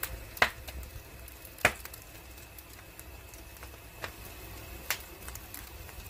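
Wood logs burning in a stone-walled firebox, crackling with a handful of sharp, irregular pops over a faint low rumble.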